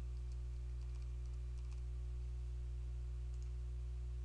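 A few light computer keyboard keystrokes, a cluster in the first two seconds and another near the end, entering a number into a spreadsheet cell. A steady low electrical hum runs under them and is the loudest sound.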